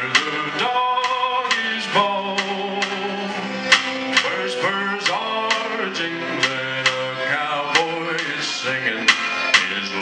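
Live country band: a male lead singer holding long sung notes over strummed acoustic guitars and upright bass, with a steady drum beat of about two strokes a second.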